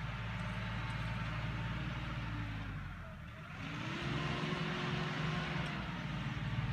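Kioti NX-series tractor's diesel engine running under load while it works a box scraper, heard from down the trail. The engine sound drops briefly about three seconds in as the tractor turns, then comes back with a slight rise in pitch.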